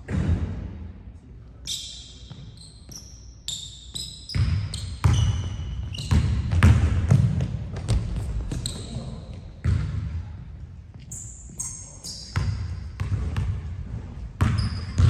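Basketball dribbled and bounced on a hardwood gym floor, a run of dull thuds, mixed with short high squeaks from sneakers on the court.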